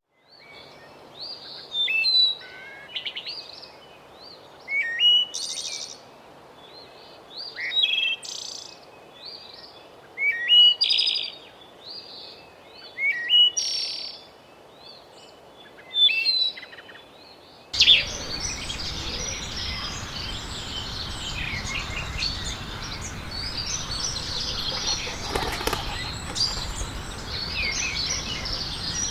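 Birdsong: a bird sings short chirping phrases, one about every one and a half to two seconds. About two-thirds of the way through this cuts off abruptly and gives way to a dense chorus of many birds calling over one another, over a steady background hiss.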